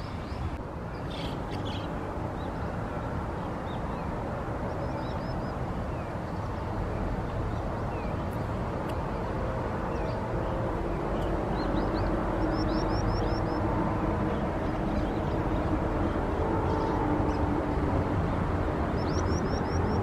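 Steady low outdoor rumble, growing slightly louder, with brief runs of short, high, downslurred bird calls: once about five seconds in, a run of four or five around the middle, and again at the very end.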